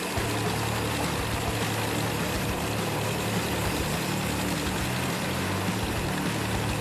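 Wood chipper's engine running steadily.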